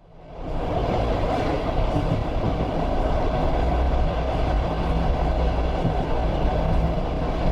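Train rumbling past, fading in over the first half second and then running at a steady level.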